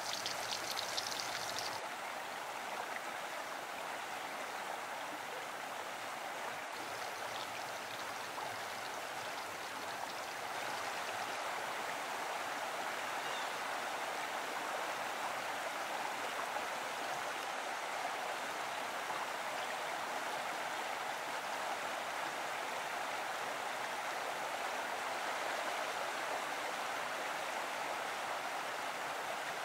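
A stream running steadily. For the first couple of seconds, battered onion rings sizzle and crackle in oil in a cast iron pan, and that stops abruptly.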